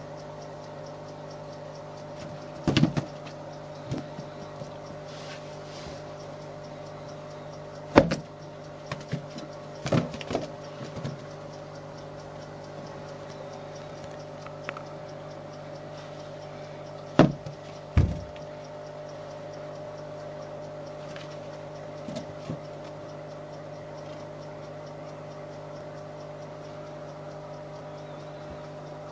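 Scattered sharp knocks and thumps, some in quick pairs, over a steady background hum.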